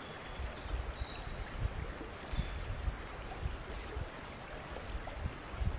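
River water flowing over a shallow bed, a steady rushing, with a bird's short, high notes through most of it and a few low thumps.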